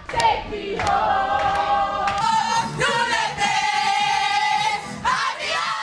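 A group of women singing a celebratory chant together, loud, in long held notes that change every second or so.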